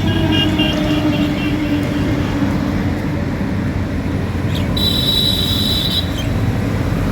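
A vehicle travelling, with a steady loud rumble, a tone that falls in pitch near the start, and a shrill high tone for about a second past the middle.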